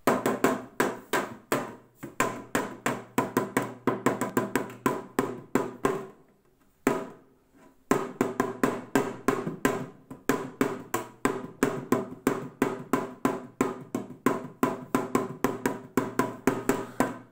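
Small leather-headed damaru-style drum played in quick, even strokes, about four a second, each with a low ring. The beating pauses for over a second near the middle, with one stroke in the gap, then carries on.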